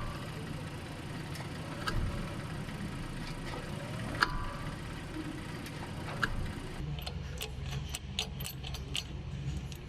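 Car engine running with the drive being put under load and released. Over it come sharp clunks and knocks from the left-hand drive shaft's worn inner tripod joint, whose failed bearings let it rock. About seven seconds in, the engine note firms up and a quicker run of clicks and knocks follows.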